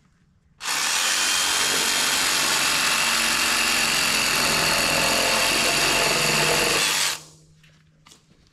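DeWalt cordless drill boring into a 6x6 timber post with a long bit, starting about half a second in and running at a steady pitch for about six and a half seconds before stopping.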